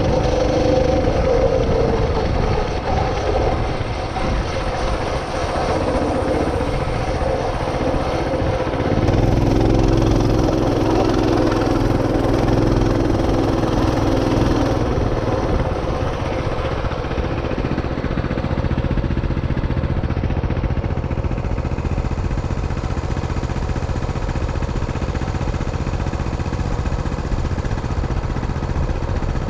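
Motorcycle engine running at low trail speed, a steady rumble whose pitch shifts a little with the throttle.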